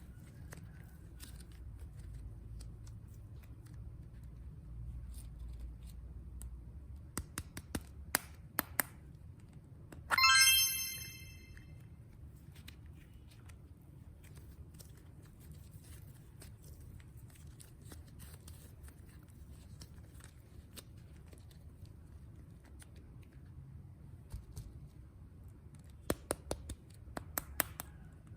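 Quiet low hum with a few bunches of sharp clicks and crinkles, and one loud, bright chime about ten seconds in that rises briefly in pitch and rings for about a second and a half.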